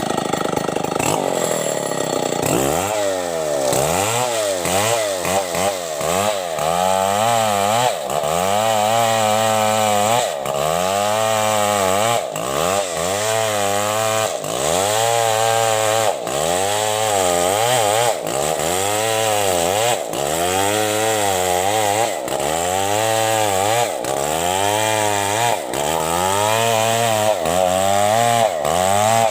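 Stihl 070 two-stroke chainsaw ripping lengthwise through a coconut palm trunk. Its engine pitch rises and sags in a regular cycle about every two seconds as the cut loads and unloads it, starting a couple of seconds in.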